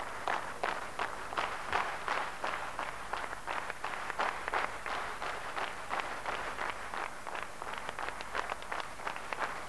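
Large audience clapping in unison, a steady rhythmic applause of about three to four claps a second.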